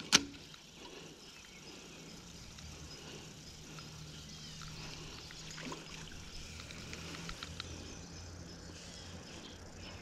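Quiet creekside ambience: a faint, steady trickle of a small stream with a low hum under it and a few scattered small ticks. One sharp click comes just at the start.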